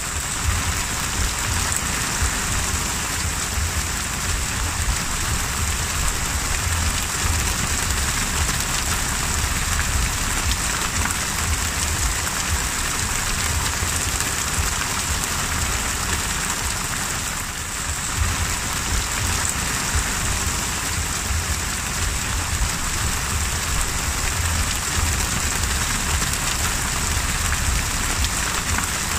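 Heavy rain pouring onto the open sea surface: a dense, steady hiss with a low rumble underneath, dipping briefly a little past halfway.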